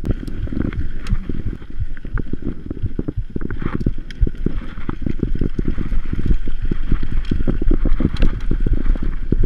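Mountain bike ridden fast over a bumpy dirt trail: heavy wind rumble on the microphone mixed with a constant stream of knocks and rattles from the bike jolting over the ground.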